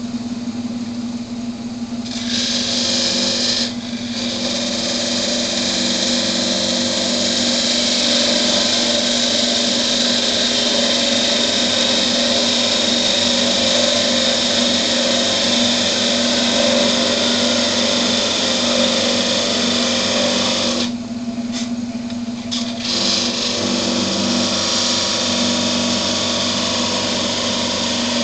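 Wood lathe running steadily with a turned spinning top on the spindle, as a parting tool cuts into the spinning wood to part it off, making a loud, high scraping hiss over the motor's hum. The cutting hiss drops out briefly near 4 s and again for about two seconds past the 20-second mark, when the tool is eased off the wood.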